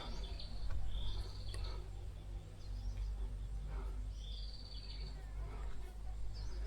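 Birds chirping in the forest: a few short high trilled calls near the start and again about four seconds in, over a low steady rumble.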